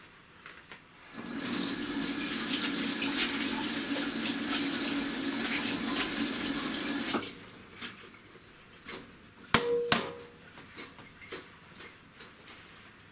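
Kitchen tap running into the sink for about six seconds as coriander is rinsed in a plastic sieve, then shut off abruptly. A few faint clicks and one sharp knock follow.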